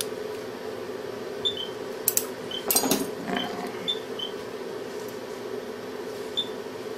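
Metal surgical instruments clicking and clinking several times about two to three seconds in, over a steady low hum, with short high beeps here and there.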